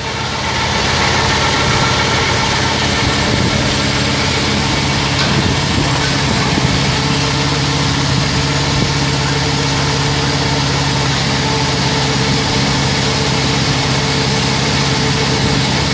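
Mobile milking parlor's washing system running a wash cycle: its pump runs with a steady hum while detergent solution is circulated through the pipeline several times.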